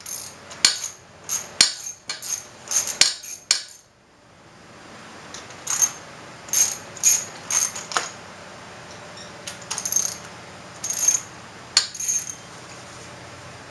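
Sharp metallic clinks and taps of a hand wrench or socket on the valve cover bolts of a Kawasaki 454LTD engine as they are loosened, several a second at first, then scattered. A low steady hum comes in about four seconds in.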